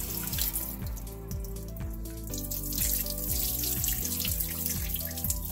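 Kitchen tap water running and splashing into a glass bowl of mung beans as they are rinsed by hand, and the rinse water is tipped out of the bowl. Background music with a steady beat plays along with it.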